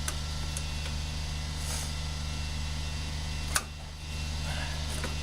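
A sharp snap about three and a half seconds in, with a smaller click at the start, over a steady low hum: a fuel rail being pried so its injectors pop out of the intake manifold.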